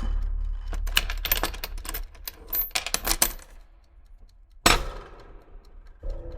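Rapid, irregular metallic clicking and clattering of small mechanical gear parts being worked, lasting about three seconds. After a short pause comes one loud, sharp clack. A low hum runs underneath.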